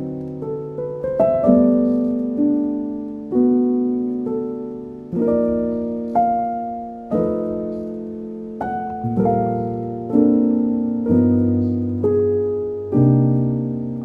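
Calm instrumental background music: slow piano-like chords, each note ringing out and fading before the next, with a short run of quick notes about a second in.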